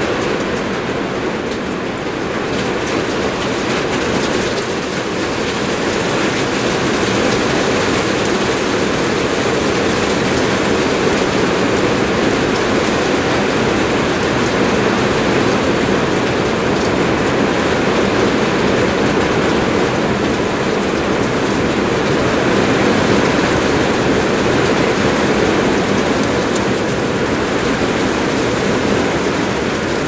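Strong rain beating on a metal roof: a dense, steady patter that grows a little louder after about five seconds.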